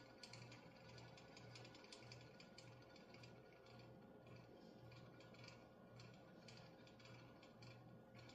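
Near silence: a faint steady electrical hum with scattered faint small clicks, as of light handling at a workbench.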